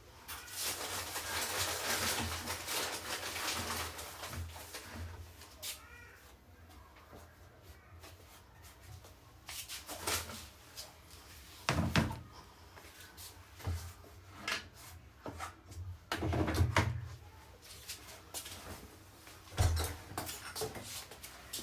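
Household handling sounds: a few seconds of rustling, then a scattered series of knocks and thumps, like doors, lids or objects being moved and set down.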